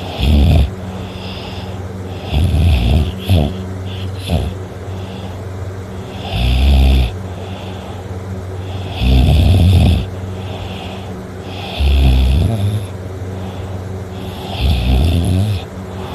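A person snoring in slow, even breaths, one snore every two to three seconds, six in all, over a steady low hum.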